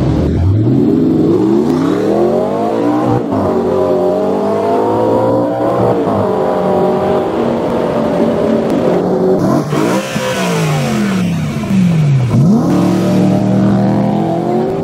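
Sports car engines revving hard and accelerating, their pitch climbing and dropping several times, with quick throttle blips near the end.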